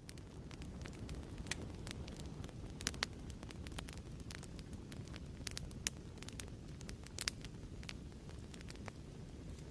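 Crackling fireplace: a wood fire with a steady low rumble and frequent sharp, irregular pops and snaps.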